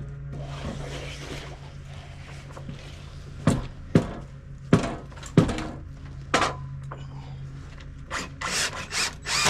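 Sharp knocks on wood, five of them over about three seconds, then a quick run of short bursts near the end, over a steady low hum. The sound of deck framing lumber being struck and worked.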